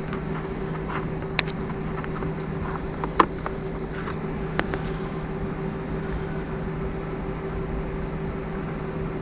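Airliner cabin noise while taxiing after landing: a steady engine hum with two low, even tones. A few sharp clicks and knocks cut through it, the loudest about three seconds in.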